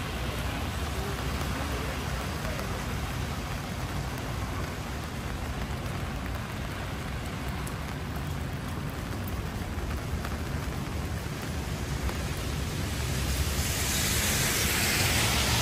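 Steady rainfall on an umbrella overhead, over a low rumble of city street noise. A louder hiss swells in the last couple of seconds.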